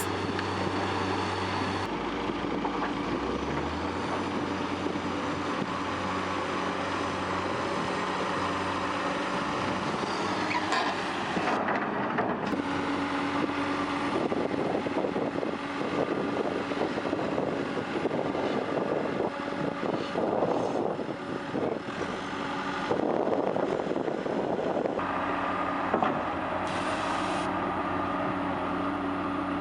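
Diesel engines of heavy earthmoving machines running steadily under load, across several spliced clips whose sound changes abruptly at each cut.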